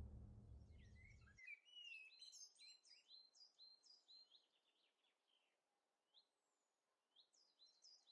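Faint birds chirping: a run of quick, high chirps for about three seconds, a pause, then a few more near the end. Before the chirping, the last of the music fades out.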